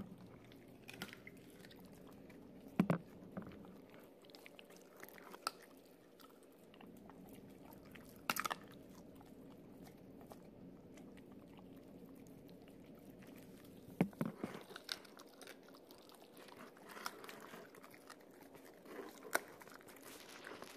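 Husky chewing raw chicken, with a few sharp bone crunches spaced several seconds apart.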